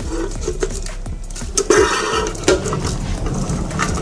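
A tin can and an electrical cable being handled: light metallic clinks and rustling, with a sharper knock about two and a half seconds in.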